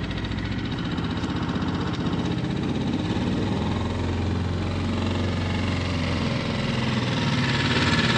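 An engine running steadily, its speed shifting slightly a few seconds in and again near the end.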